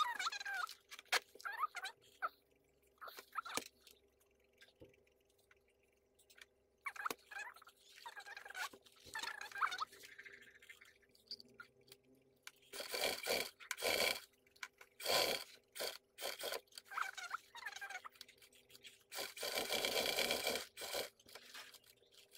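Sewing machine stitching through leather and lining in three short runs, the longest about two seconds, near the end. Before that come rustling and handling sounds as the fabric is arranged.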